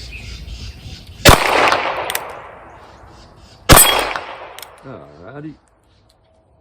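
Two shots from a Ruger Wrangler Birds Head .22 LR single-action revolver, about two and a half seconds apart. Each is a sharp crack that echoes away over about a second.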